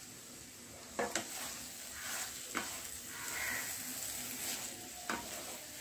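A spatula stirring cluster beans (gavar) in a nonstick kadhai over a light sizzle. It knocks against the pan a few times, starting about a second in.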